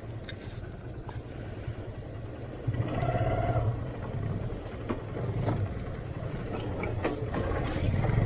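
Motorcycle engine running at low revs down a steep off-road descent, swelling briefly about three seconds in, with scattered knocks and clicks.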